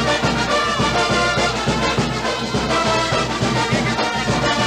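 Carnival tonada played by a brass band: horns carry the tune over a steady drum beat.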